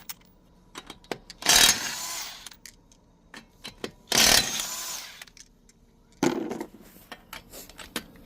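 Impact wrench spinning off 21 mm wheel lug nuts in three short bursts of about a second each, each starting sharply and fading. Small clicks come between the bursts.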